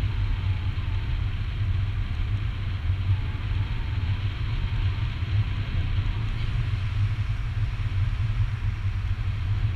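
Wind rushing over the camera's microphone in tandem paraglider flight: a steady low rumble with a fainter hiss above it.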